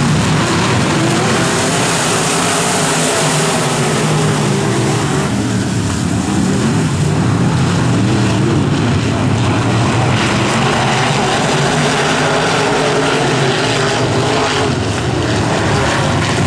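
IMCA dirt modified race cars' V8 engines running at racing speed, a loud, continuous drone of several engines at once.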